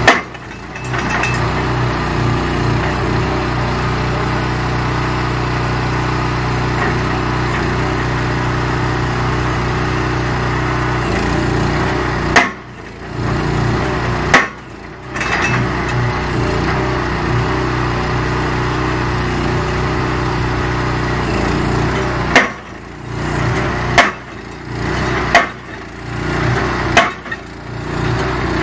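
Self-propelled guardrail post driver's hammer pounding a steel guardrail post into the ground in a steady run of blows over its small engine. It breaks off briefly twice about halfway through, then in the last few seconds stops and restarts several times, each restart with a sharp clank.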